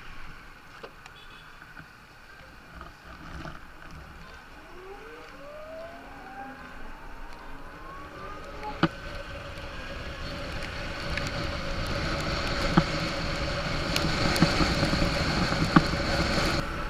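Ather 450X electric scooter under way: its motor whine rises in pitch as it picks up speed, then holds at a steady tone. Wind and tyre noise on the wet road grow louder throughout, with a few sharp knocks.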